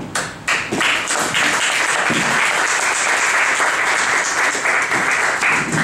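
Audience applauding: a few separate claps at first, filling out within about a second and a half into steady applause that holds until near the end.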